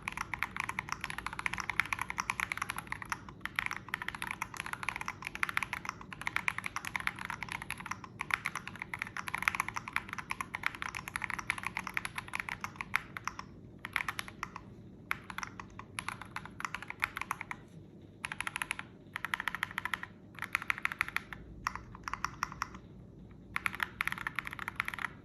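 SamS46 mechanical keyboard with Holy Panda tactile switches and Signature Plastics SA-profile keycaps being typed on: fast, continuous key clacks for the first half, then short bursts of typing separated by brief pauses.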